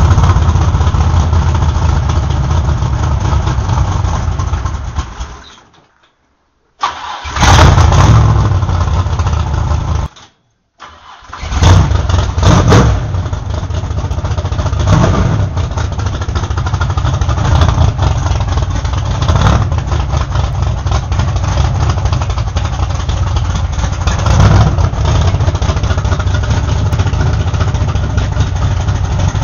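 Alcohol-burning Chevy 350 small-block V8 in a modified dirt stock car, running loud. It dies away about five seconds in and cuts out again about ten seconds in, catching again each time. After that it keeps running with sharp throttle blips every few seconds.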